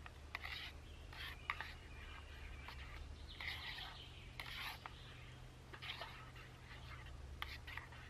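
Faint, irregular scrapes, rubs and sharp clicks of utensils working in a metal cooking pot of noodles on a small camp stove, over a steady low rumble.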